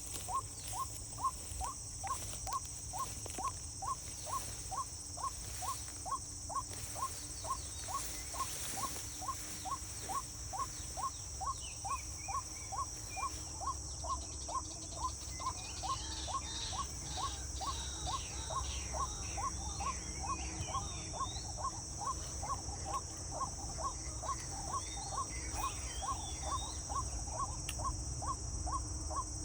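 Insects droning steadily, with a short call repeating about one and a half times a second and birds chirping from about halfway on.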